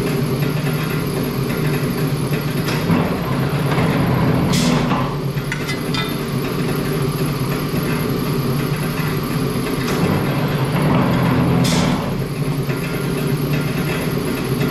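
Steady hum of a powered press brake's motor running, with a few sharp metallic clicks and knocks as the sheet-metal panel is bent.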